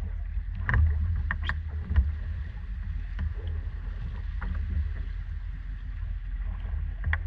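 A vintage hydroplane race boat drifting at the dock: a steady low rumble with a few sharp knocks and taps, the loudest about two seconds in.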